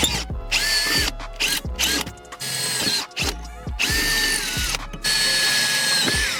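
Electric drill run in several short bursts, its motor whine dropping as each burst ends, while it bores mounting holes through a pedal cover into the car's pedal. Background music with a steady beat plays underneath.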